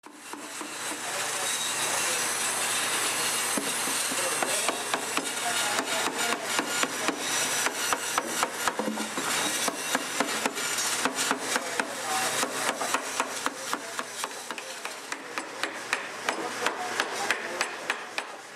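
Hand-tool work on wood: rapid light knocks, about three to four a second, over a rough scraping noise that is strongest at first.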